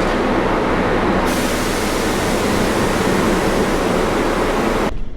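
Loud steady rushing noise, like a vehicle in motion or wind, that grows brighter about a second in and cuts off abruptly near the end.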